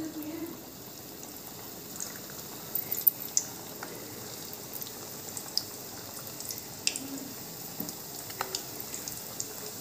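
Stuffed wheat-dough rounds (aate ki ghati) deep-frying in hot oil in a kadai: a steady sizzle with scattered small pops and crackles.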